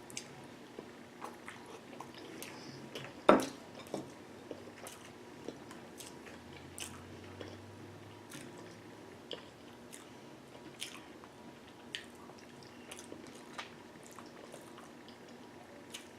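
Close-up mukbang eating of a seafood boil: wet chewing and lip smacking, with many short scattered clicks and one much louder sharp snap about three seconds in.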